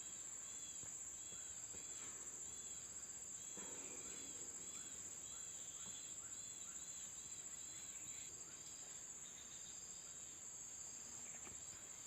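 Steady high-pitched insect drone of crickets or cicadas. A short chirp repeats about twice a second over it and stops about two-thirds of the way through.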